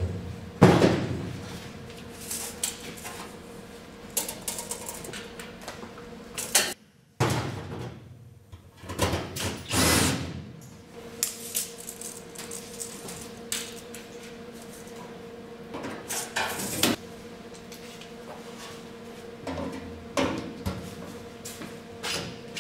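Scattered knocks, clatter and scrapes of metal parts and tools being handled in a bare steel car body shell, over a steady faint hum. The sound cuts out briefly about seven seconds in.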